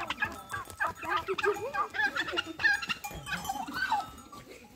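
Poultry calling: a run of many short, pitched clucks and calls in quick succession.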